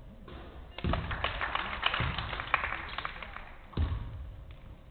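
A basketball thuds on a hard gym floor after a made free throw, and about two and a half seconds of scattered clapping follow. The ball thuds on the floor again near the end.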